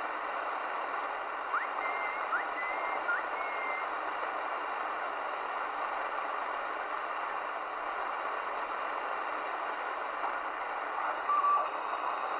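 Midland Alan 8001 CB radio receiving an open channel with no station transmitting: steady band static through the set's speaker. A few short whistling tones chirp through the hiss a couple of seconds in, and a brief tone sounds near the end.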